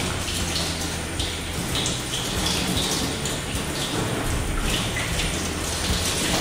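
Water spraying steadily from a hand-held sprayer hose, rinsing a dog in a stainless steel wash tub: a continuous hiss of spray on wet fur and metal.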